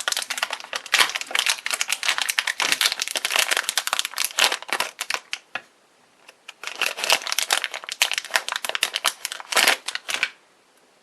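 Packaging crinkling as it is opened and handled, in two bouts with a short pause about halfway through.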